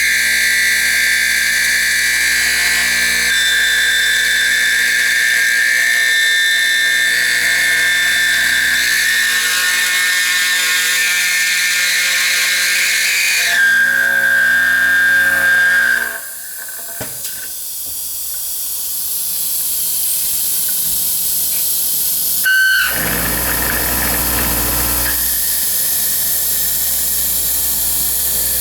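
MLA A40/A45 copy router milling a lock pocket into a fire-resistant steel door profile: a loud, steady high-pitched whine of the spinning cutter working the steel. About two-thirds of the way through it drops and changes, a short sharp sound follows, and then the steady whine comes back.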